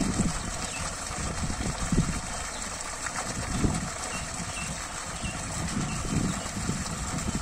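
A steady rushing of water, with gusts of wind buffeting the microphone. A few faint, short, high chirps come through in the middle.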